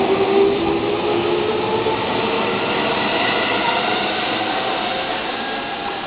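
Electric commuter train running along the platform, with a whine of several steady tones over the wheel and rail noise, slowly fading as it moves away.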